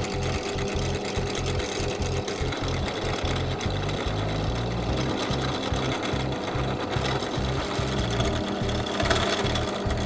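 Drill press running steadily as its bit drills into a plastic bottle cap, over background music with a steady beat.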